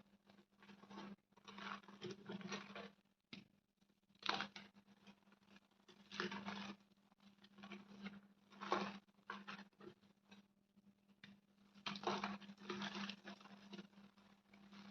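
Chalk being crushed and crumbled in repeated crunchy bursts a couple of seconds apart, faint because it was picked up only by the phone's built-in microphone. A steady low hum runs underneath.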